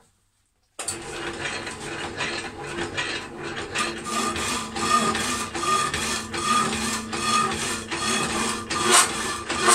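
Power hacksaw cutting through thick steel rebar, its blade rasping back and forth in a steady rhythm of strokes with cutting oil on the cut. It starts abruptly about a second in.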